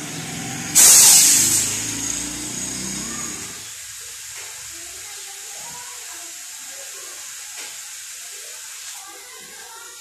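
A sudden loud blast of compressed air hissing out of a freezer's evaporator tubing into a cloth held over the pipe end, about a second in, then tapering off over the next couple of seconds. The line is being blown clear of the compressor oil that has collected in it after a leak.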